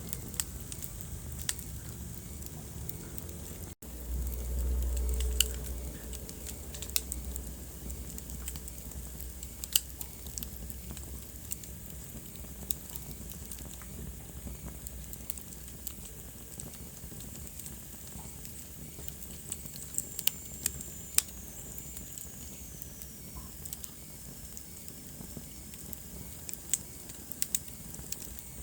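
Wood fire burning in a fireplace: a steady soft hiss with scattered sharp crackles and pops. A low rumble rises for about two seconds after a brief dropout near the start, and a faint falling whistle comes about two-thirds of the way through.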